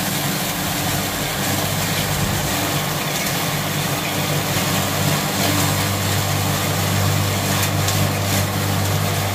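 Bo'ron feed grinder (drobilka) running steadily as dry straw is fed into its hopper and chopped: a continuous motor hum under a dense grinding rush, the low hum growing stronger about halfway through.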